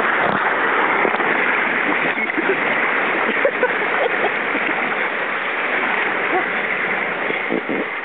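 Steady rushing and splashing of water around an inner tube riding down a water slide.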